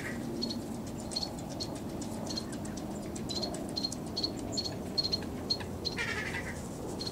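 Repeated short, high chirps at one pitch, coming irregularly about once or twice a second over a low background rumble, with a longer, lower call about six seconds in.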